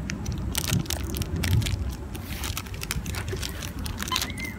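Plastic snack wrapper crinkling and crackling as it is handled and torn open, in a run of short sharp crackles.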